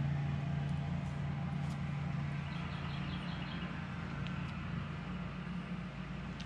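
Steady low hum of a running motor or engine, even in level throughout.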